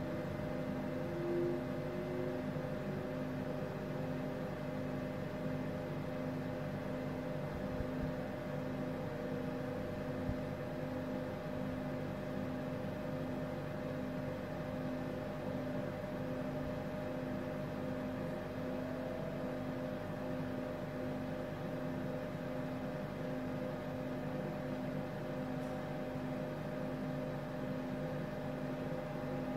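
INFICON Ecotec E3000 helium leak detector running up: a steady machine hum from its pumps, with a faint whine from the turbomolecular pump rising slowly in pitch as the pump accelerates.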